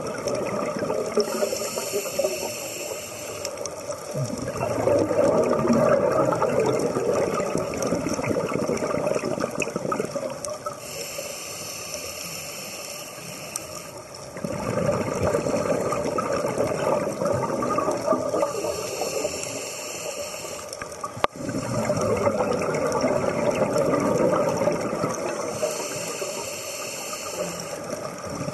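Scuba diver breathing through a regulator underwater, in a slow cycle of about four breaths: a hissing inhalation every eight seconds or so, each followed by a louder gurgling rush of exhaled bubbles.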